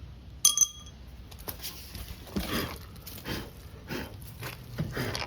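Hand tools and gear being picked up and handled: one sharp metallic clink with a short ring about half a second in, then a run of irregular rustles and light knocks.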